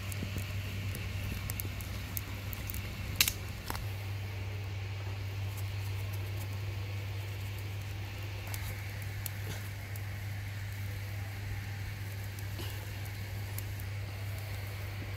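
Wood fire crackling under a wok, with scattered sharp pops over a steady low hum; about three seconds in comes a single much louder click.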